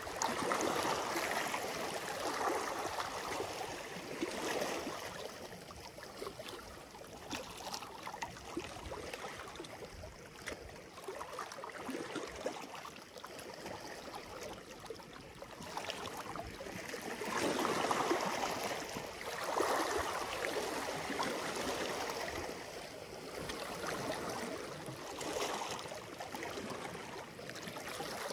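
Small sea waves lapping and washing over shallow rocks at the shoreline, swelling and falling back every couple of seconds.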